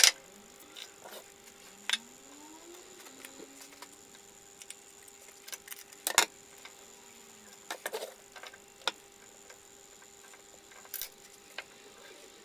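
Scattered sharp clicks and knocks of a metal spatula and knife against a nonstick frying pan and a PVC pipe as sticky sugar-and-nitrate rocket fuel is scraped up and pushed into the pipe. The loudest knocks come at the very start and about six seconds in.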